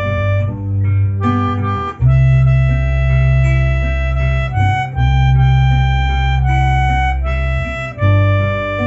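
Melodica playing a slow melody in long held reedy notes over a backing track with guitar and bass.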